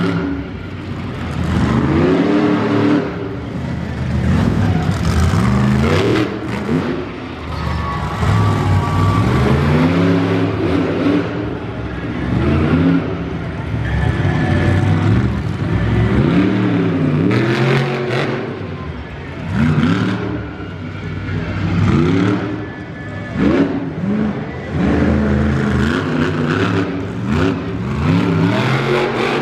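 Kamikaze monster truck's engine revving hard and dropping back, over and over, as the truck drives and turns, with the pitch climbing and falling roughly every couple of seconds.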